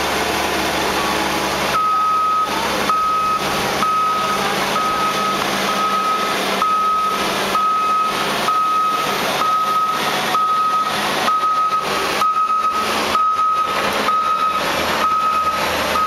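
A reversing alarm beeping about once a second, starting about two seconds in, over the steady running of the engines of a John Deere crawler dozer and loader tractor working a silage pile.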